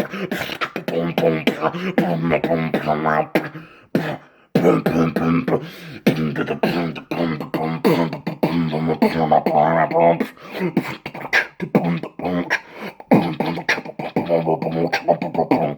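A man beatboxing: quick rhythmic mouth clicks and snare sounds over a low held bass note, with a short break about four seconds in.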